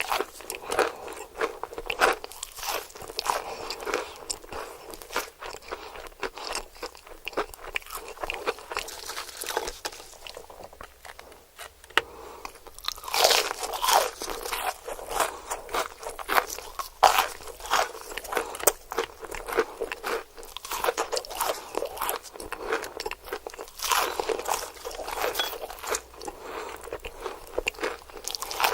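Crispy fried chicken being bitten and chewed, with irregular loud crunches of the breaded crust and quieter chewing between them.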